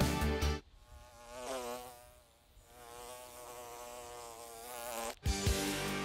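Buzzing of a flying insect, wavering in pitch, loudest early on, fading, then growing again before it cuts off suddenly. Background music stops about half a second in and comes back just before the end.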